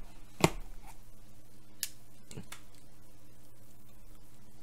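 Packaging being handled while a parcel is unwrapped: one sharp snap about half a second in, then a couple of fainter clicks, over a steady low electrical hum.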